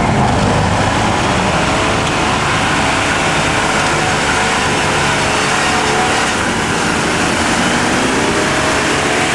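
Jeep engine running hard at high revs under load as it climbs a steep dirt hill, its pitch wavering a little, over a steady noisy wash of spinning tyres and flung dirt.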